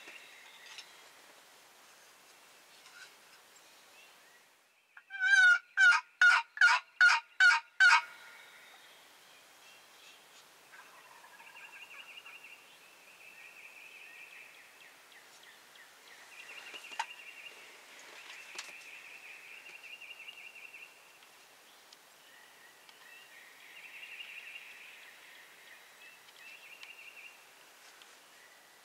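Seven loud, quick hen-turkey yelps from a hunter's turkey call about five seconds in, then a wild tom turkey gobbling faintly in the distance, again and again.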